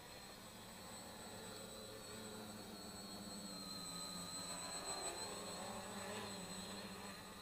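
3D-printed quadcopter's electric motors and propellers buzzing with a wavering pitch, growing louder about five seconds in and dropping off near the end as it comes down low.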